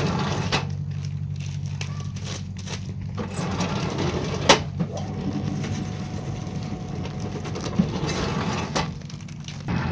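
Baglog press machine for packing mushroom substrate into bags running with a steady low hum, with one sharp knock about four and a half seconds in.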